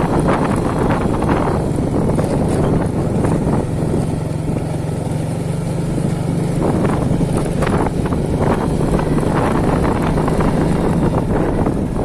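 Wind gusting over the microphone in loud, rumbling swells, with a steady low hum running underneath.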